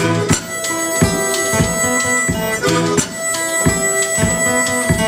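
Blues band playing an instrumental break: sustained harmonica notes over a repeating riff with a steady beat.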